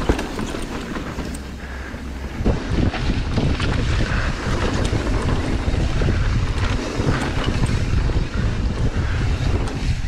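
Wind buffeting an action camera's microphone as a mountain bike rides down a rocky dirt trail, with tyre rumble and the rattle and knocks of the bike over rocks. The low wind rumble gets heavier about two and a half seconds in.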